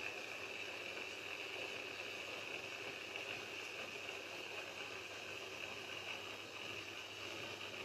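Steady rush of moving, bubbling water with a faint low hum underneath.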